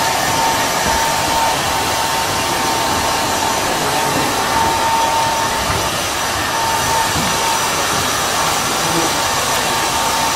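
Handheld hair dryer blowing steadily during a blow-dry, a rushing hiss with a steady whine running through it.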